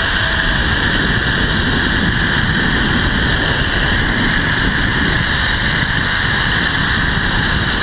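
Zip line trolley's pulley wheels running fast along the steel cable with a steady whirring whine, over wind buffeting the microphone.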